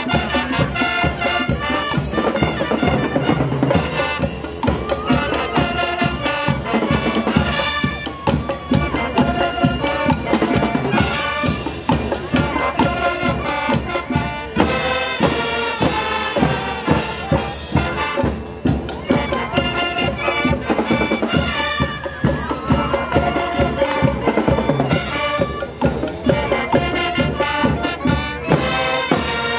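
A school marching band playing: trumpets, trombones, saxophones and sousaphones over bass drums, snare drums and cymbals, with a steady beat.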